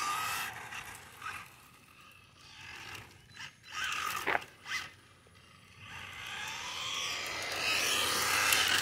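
Remote-control car running over gravel: tyres scrabbling and crunching on the stones along with the electric motor's whine, fading away in the first second or two, a few short scrapes in the middle, then building steadily again over the last few seconds as the car comes back.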